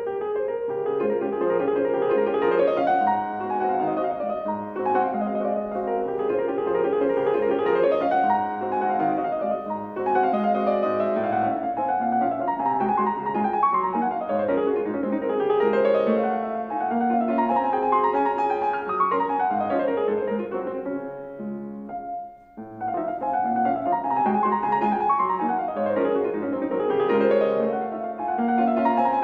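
A concert grand piano played solo: fast classical passages of quick rising and falling runs over bass notes, breaking off for a moment about three quarters of the way through.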